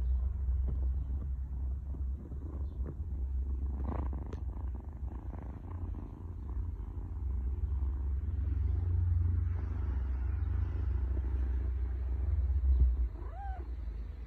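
Tabby kitten purring steadily as it is stroked, a continuous low rumble. Near the end comes one short pitched squeak.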